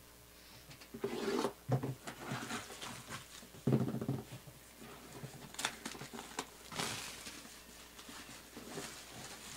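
Cardboard jersey box being opened by hand: scraping and sliding of the lid, with two dull knocks about a second in and near four seconds, and a plastic-bag rustle around seven seconds.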